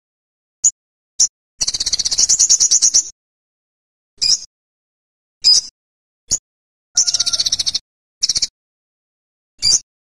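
Olive-backed sunbird calling: a series of short, sharp, high chips, with two longer fast trills, one starting about a second and a half in and lasting about a second and a half, the other about seven seconds in.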